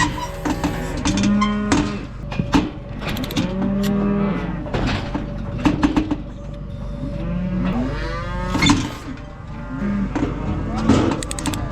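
Many cattle bawling and mooing over one another, calls rising and falling in pitch, with scattered knocks and clatter among them.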